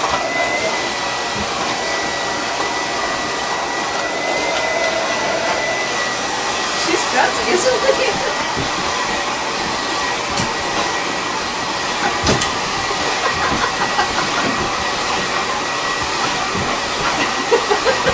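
Handheld hair dryer blowing steadily, a constant rush of air with a thin high whine, broken now and then by short clicks and knocks.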